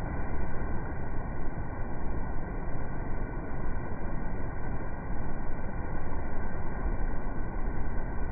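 Steady rushing water of a coastal ship's wake churning behind the hull, with a low rumble underneath.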